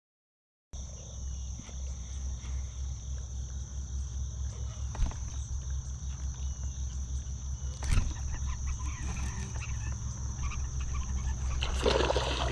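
Steady high-pitched insect chorus from the riverbank over a low, fluttering rumble, starting after about a second of silence. Near the end, a hooked smallmouth bass splashes at the surface.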